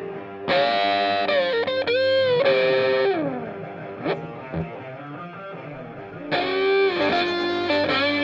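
Background music: electric guitar with distortion and effects, playing bending lead phrases, quieter between about three and six seconds in.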